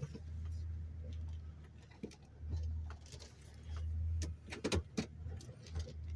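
Low rumble of a 1996 Toyota T100's 3.4-litre V6 running as the truck is eased into position, with a few sharp knocks and clicks in the second half.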